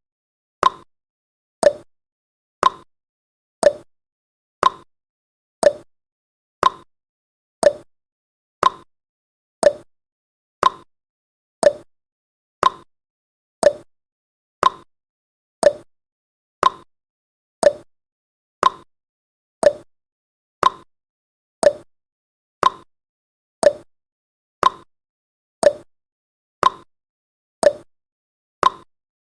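Countdown timer's ticking sound effect: a short, sharp tick about once a second, marking off each second of the countdown.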